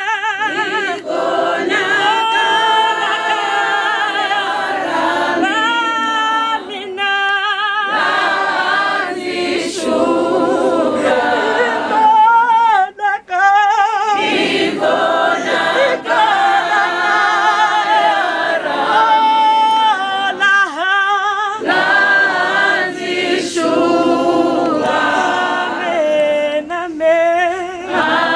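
A crowd of mourners singing together unaccompanied, many voices in a choir-like unison. Long held, wavering notes come in phrases, with brief breaths between them.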